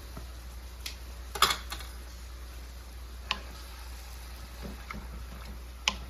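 Stirring pork and onions in a nonstick wok: a few scattered knocks and scrapes of the cooking utensils against the pan, the sharpest about a second and a half in, around three seconds in, and near the end, over a steady low hum.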